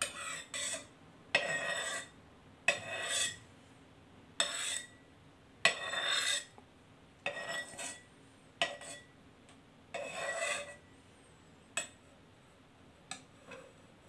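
Metal spatula scraping across the bottom of an electric wok in repeated strokes, spreading a little cooking oil. Each stroke starts with a sharp clack of metal on metal; about eight strokes, with a few light taps near the end.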